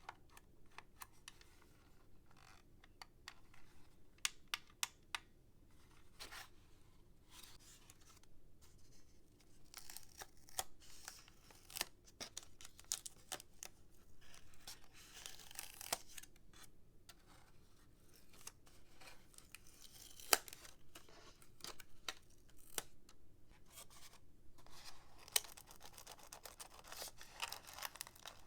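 Hands opening toy packaging: rustling and tearing of cardboard and plastic, with many scattered sharp clicks and taps.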